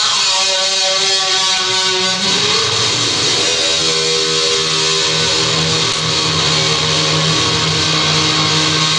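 A man's voice imitating a distorted electric guitar through a microphone and PA: wavering, bending notes for about two seconds, then one long held note like guitar feedback.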